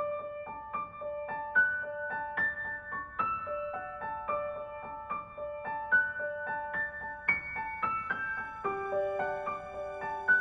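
Background music: a gentle piano melody of short, evenly paced notes, with a lower sustained chord coming in near the end.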